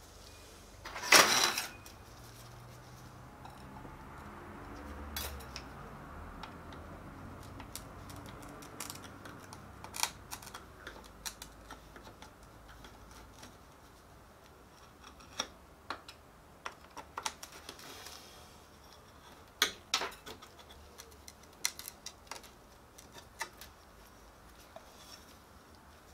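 Small clicks, taps and scrapes of a screwdriver and a glass touch-screen panel being handled on a metal worktable, as the touch screen is pried loose from a copier's LCD operation panel. A short louder scrape comes about a second in, then scattered single clicks.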